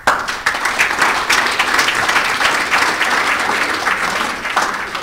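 Audience applauding, a dense run of many hands clapping that starts suddenly, holds steady and begins to thin near the end.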